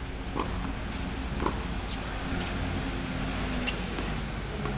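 A few sharp pops of a tennis ball struck by a racket or bounced on the hard court, over a steady low hum.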